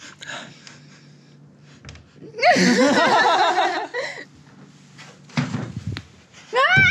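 Wooden door pushed and held shut, knocking and bumping in its frame, with a woman's high laughing squeal about two and a half seconds in as the loudest sound and another rising squeal at the end.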